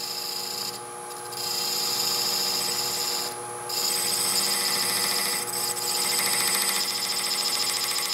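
Steel vernier caliper points scraping against a wooden spigot spinning on a woodturning lathe, scribing a marking line: a scratchy hiss that breaks off briefly about a second in and again around three and a half seconds in. The lathe runs underneath with a steady hum.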